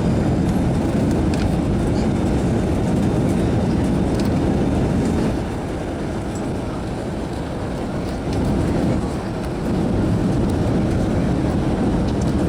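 Passenger airliner's engine and airflow noise, a steady low rumble that eases off about five seconds in and builds again near ten seconds.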